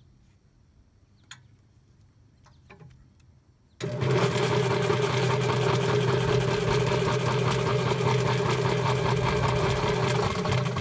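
A Yardbird chicken plucker's electric motor is switched on about four seconds in, starting abruptly and then running with a steady hum as it spins the rubber-fingered bottom plate of the empty drum on a test run. A few faint clicks come before it starts.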